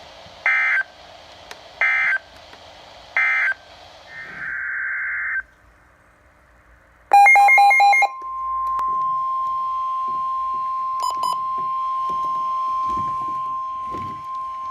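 NOAA Weather Radio alert signalling: three short screeching data bursts about a second apart, the end-of-message code for the warning just read, then a longer data burst and a brief pulsing beep. From about eight seconds in, a steady single-pitch alarm tone, the 1050 Hz warning alarm that comes before a new warning is read.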